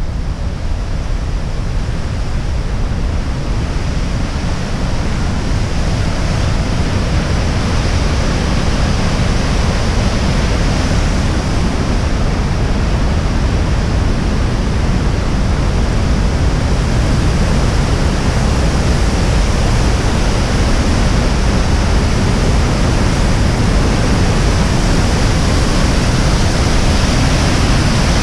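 Cleddau River white water rushing and falling through the narrow rock Chasm: a loud, steady rush that grows over the first several seconds, then holds.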